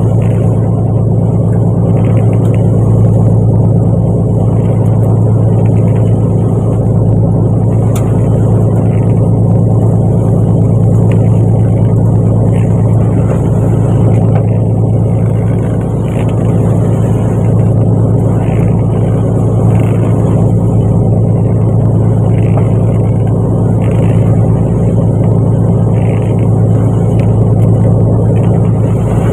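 Fishing boat's engine running steadily at constant speed: a loud, unchanging low drone.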